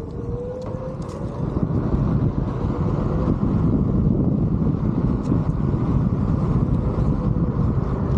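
Onewheel GT rolling over asphalt: a steady rumble of the tyre and hub motor mixed with wind buffeting the microphone, getting louder about two seconds in. A faint motor whine holds one pitch, rising slightly about half a second in.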